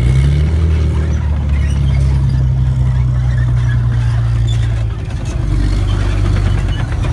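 Challenger 1 main battle tank's V12 diesel engine running as the tank rolls slowly past, a deep, steady drone that eases off slightly about five seconds in.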